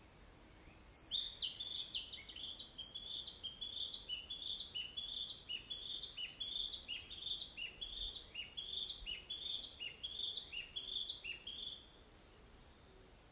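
A songbird singing a long run of repeated, downward-sliding notes, about two a second, starting about a second in and stopping near the end.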